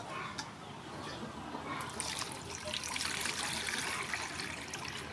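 Whole fish tipped into a stainless steel bowl with a sharp knock at the start, then water poured over them from a plastic bowl, splashing and trickling in the steel bowl, loudest around the middle.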